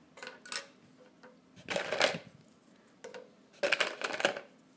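Small hard plastic craft pieces (fused perler beads) clattering and rustling as they are handled, in three short bursts about a second and a half apart.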